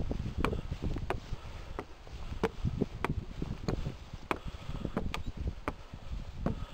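Footsteps of a person climbing wooden stair treads, a sharp knock about every two-thirds of a second, over a low rumble of wind on the microphone.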